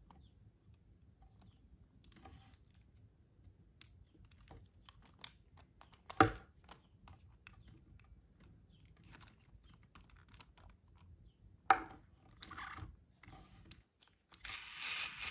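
Hasbro I-Dog robot toy's plastic shell being handled: scattered light clicks and taps, with two sharper knocks about six and twelve seconds in. Near the end the toy starts up and a louder, steady electronic sound begins.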